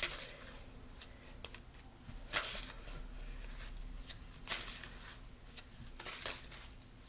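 A tarot deck being shuffled by hand: four short rustles of cards, about two seconds apart.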